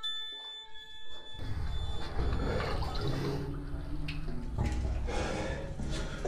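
Water sloshing and splashing right at the microphone as a caver moves through a flooded cave passage with only a small air gap, starting about a second in and continuing.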